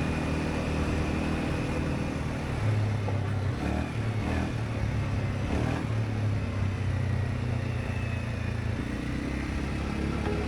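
Segway AT5 ATV's engine running steadily while riding, a little louder for a few seconds in the middle.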